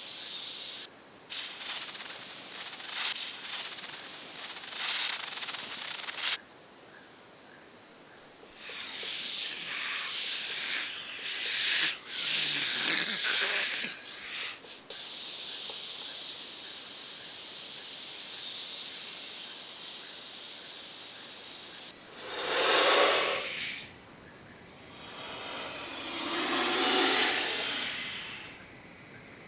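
Snakes hissing, several separate hisses one after another: choppy repeated bursts in the first half, a long steady hiss in the middle, and two louder swelling hisses near the end.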